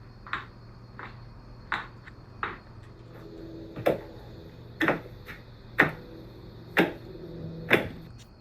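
A series of short, sharp knocks: four fainter ones, then five louder ones spaced about a second apart.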